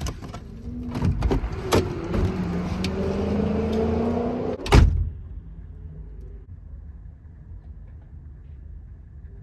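Knocks and rustling as someone climbs out of a Chevy Astro van, then the van's door slammed shut with one loud bang about five seconds in. A low steady background follows.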